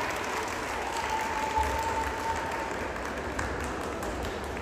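Audience applauding steadily, the clapping easing off gradually.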